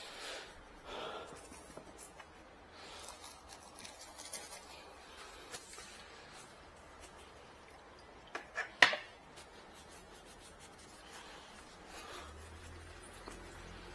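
Soft rubbing and rustling of a damp paper tissue wiping spilled ink off a surface, in short strokes. A short cluster of sharp clicks, the loudest sound, comes a little under nine seconds in.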